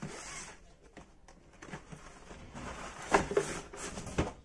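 Cardboard box sleeve rustling and scraping as it is slid off a black plastic tool carry case, with scattered clicks and knocks; the loudest knock comes about three seconds in and a second sharp one near the end.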